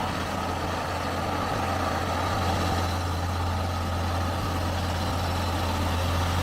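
Heavy truck's diesel engine running at a steady low drone while hauling a heavy load of excavators up a mountain grade.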